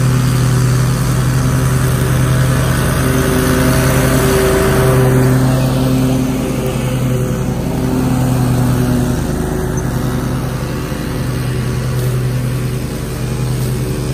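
A Ferris commercial lawn mower engine and a gas string trimmer running together: a steady engine drone with the trimmer's high whine over it, the whine strongest in the first few seconds.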